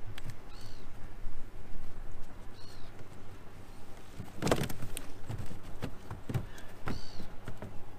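Wet keepnet with fish in it being hauled out of the water onto a wooden platform, rustling and knocking, with a cluster of knocks about four and a half seconds in and a few more after. A small bird chirps three times.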